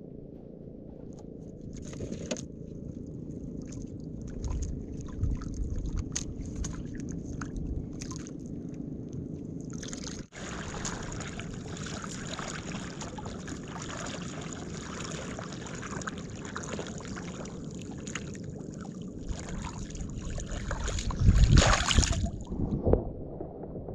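Sea water lapping and sloshing against the hull of a small wooden outrigger boat, with light clicks and knocks in the first half as a caught needlefish and line are handled. Near the end a louder splash as a hand goes into the water beside the boat.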